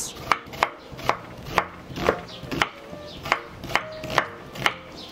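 Kitchen knife slicing a white onion into strips on a wooden cutting board: a steady series of sharp cuts, about two a second, each knocking the blade against the board.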